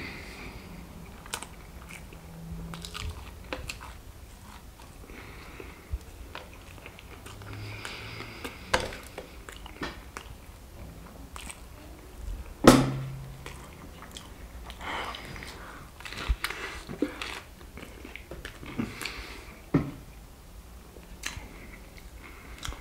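Close-miked chewing and biting of fried chicken and pizza: wet chewing with scattered crunches and clicks, and one louder knock about halfway through.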